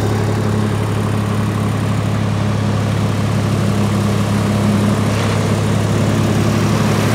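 An engine running steadily at constant speed, a loud, even low hum.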